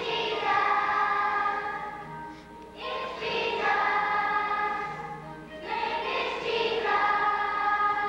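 Children's choir singing long held notes in three phrases, each swelling in at the start, with short breaths between.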